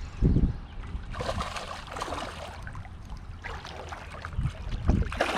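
River water trickling and splashing around wading legs, with a few short splashes and a low steady rumble underneath.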